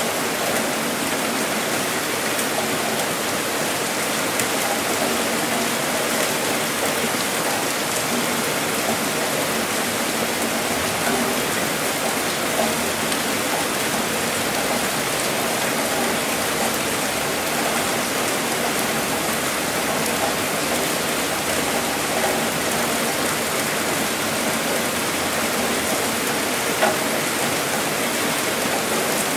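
Heavy rain falling steadily: a dense, even hiss of many drops, with one sharper single tap near the end.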